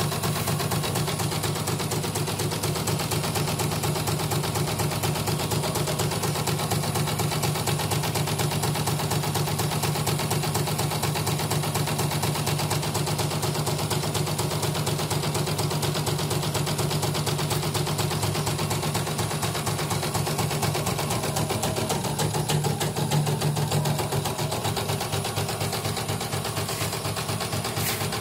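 CNY portable computerized embroidery machine stitching a design, its needle running in a rapid, steady stream of strokes. This is a test run after repair, and the machine runs through it without trouble.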